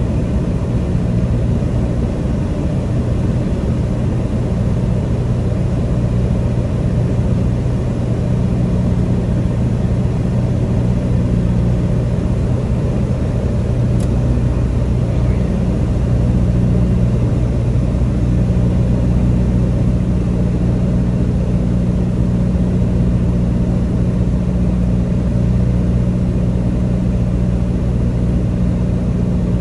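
Single-engine light airplane's piston engine and propeller droning steadily as heard inside the cockpit in flight, the engine note shifting a little now and then.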